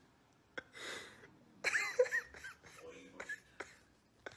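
A person making short breathy vocal sounds, with a few sharp clicks in between.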